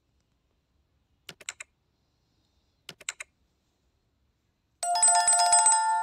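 Subscribe-button animation sound effects: two quick triple mouse clicks about a second and a half apart, then a trilling, telephone-like notification bell that starts near the end and fades out.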